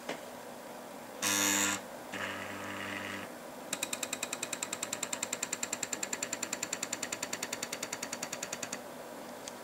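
Stepper motor turning the microscope's focus. First come two short buzzing whines as it runs quickly. Then it ticks step by step at about ten steps a second for some five seconds and stops near the end.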